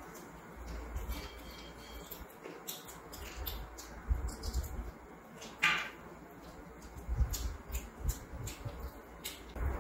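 Close-miked eating sounds: a person chewing and biting meat off a bone, with wet mouth clicks and smacks scattered irregularly and one louder click a little past halfway.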